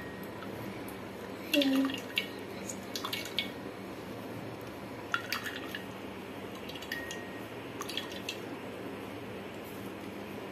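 Coconut milk dripping from hand-pressed grated coconut through a steel strainer into a steel bowl, with scattered small clicks and ticks of the strainer and fingers. A brief pitched sound, like a short hum, comes about one and a half seconds in.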